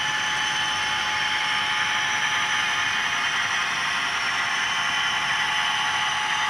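Model diesel locomotive's sound decoder playing a diesel engine running sound through its small onboard speaker: a steady, hissy engine drone with a faint steady whine, thin in the low end.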